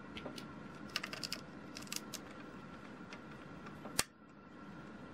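Small plastic Lego pieces clicking as 1x2 tiles are handled and pressed onto a brick-built truck cab: a few light clicks, then one sharper snap about four seconds in.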